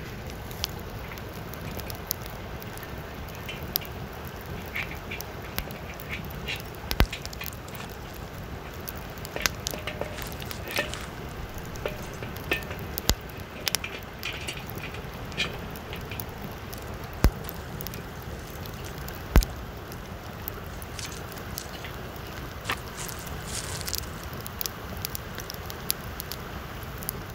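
Steady rush of a flowing stream under a crackling wood campfire, with sharp clicks and clinks as a steel wok is handled on a tripod over the fire.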